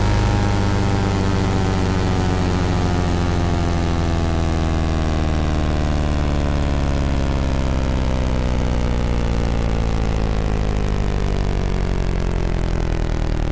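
Buzzing electronic drone of the oscilloscope animation's soundtrack: a steady low hum under a cluster of higher tones that slowly glide down in pitch.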